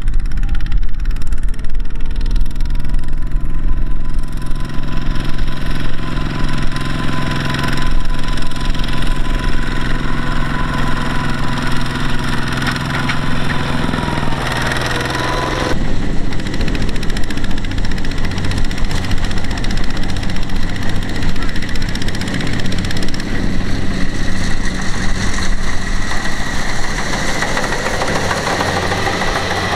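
Single-cylinder diesel engine of a Kubota walking tractor running with a knocking diesel chug while hauling a trailer of rice sacks; its pitch rises over the first few seconds. About halfway through the sound changes abruptly to a steadier engine run.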